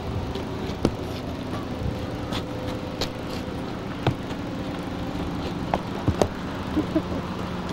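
A steady low mechanical hum, like an engine running, with a few scattered sharp clicks.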